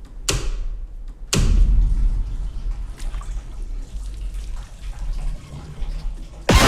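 Horror trailer sound design: two sharp hits about a second apart, each dying away, then a low rumbling drone, cut by a sudden loud hit near the end.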